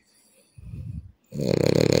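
A sleeping man snoring: a softer, lower breath about half a second in, then a loud snore with a fast flutter starting past halfway and running on. He is asleep and does not respond when called.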